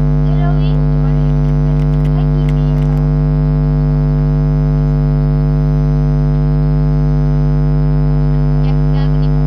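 Loud, steady electrical hum with many evenly spaced overtones, unchanging throughout; faint traces of a voice show through it only briefly.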